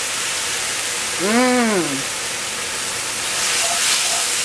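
Ramen noodles and sautéed vegetables sizzling steadily in a hot skillet. The sizzle swells briefly about three and a half seconds in as the spoon works the noodles. A short hummed voice rises and falls about a second in.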